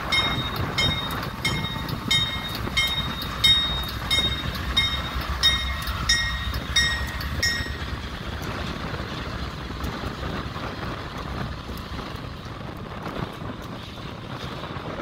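Diesel freight locomotives rumbling past, with a warning bell ringing about twice a second that stops about halfway through; the train's rumble then carries on, a little quieter as it moves away.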